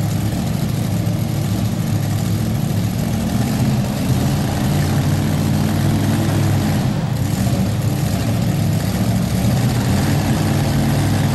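Chevy S10 two-wheel-drive pulling truck's modified engine idling steadily at the starting line, waiting to be hooked to the sled.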